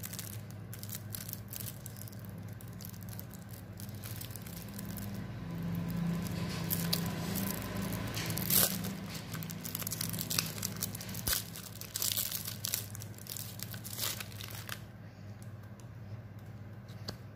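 Plastic wrapping around a stack of Pokémon trading cards being torn and crinkled as it is pulled off, a run of irregular crackles that gets busier about midway, with one louder snap.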